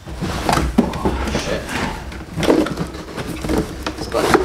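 Cardboard box being handled and opened: flaps bending, rustling and scraping in irregular bursts as the packaging is pulled apart.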